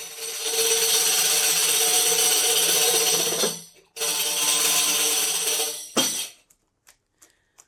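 Scene-change music: a tambourine jingling over a held note, in two stretches of about three and two seconds with a short break between, then a brief stroke about six seconds in.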